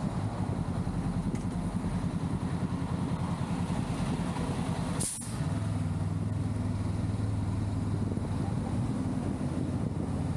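Honda Rebel 500's parallel-twin engine running at low road speed in traffic, alongside trucks. Its sound drops out briefly with a short hiss about five seconds in, then settles to a steadier note.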